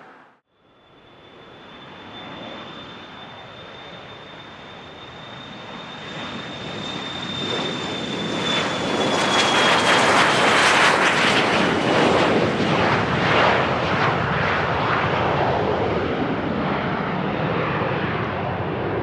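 Business jet passing close by, its engines' high whine holding steady and then dropping slightly in pitch as it goes past. The engine noise builds to its loudest about ten seconds in and stays loud to the end.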